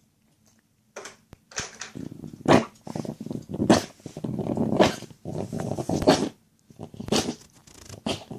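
A sick pet coughing with a gurgling, wet sound: a run of rattling coughs, peaking about once a second, that starts about a second in and pauses briefly about two thirds of the way through. It is a sign the animal is unwell.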